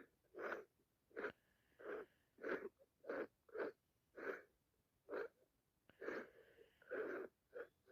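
A person with sinusitis sniffing hard through a congested nose, about a dozen short sniffs at one or two a second. A faint whistle runs through a couple of them.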